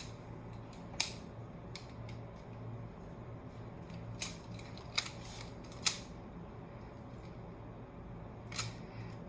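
Hard plastic Lego Technic pieces clicking and knocking as they are handled and pushed together: a handful of short, sharp clicks scattered over several seconds, the loudest about a second in, over a low steady hum.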